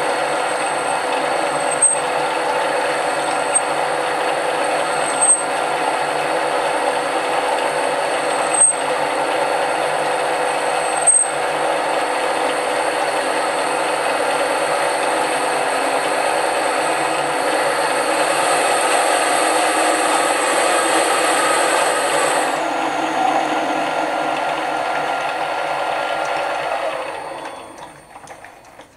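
Mini lathe running steadily, turning a cast iron bar while a centre drill in the tailstock chuck bores into its end face, with a few sharp ticks in the first half. Near the end the machine winds down and the sound fades away.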